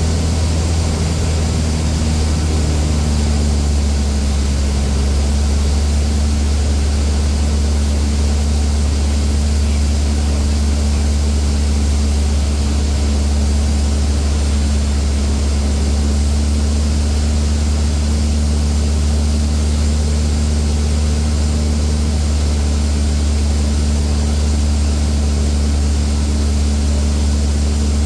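Cessna A152 Aerobat's piston engine and propeller droning steadily in flight, heard from inside the cockpit. The engine note shifts slightly in the first few seconds, then holds even.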